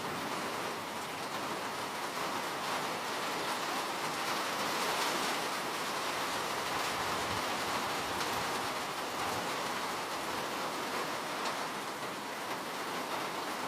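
Steady rain falling, an even hiss with faint drop ticks scattered through it.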